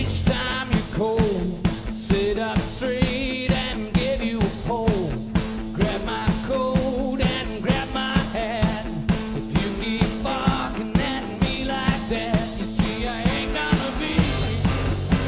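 Stoner blues-rock band playing live: a male voice singing over electric guitar and a steady drum beat, hitting about twice a second. The heavy low end comes back in near the end.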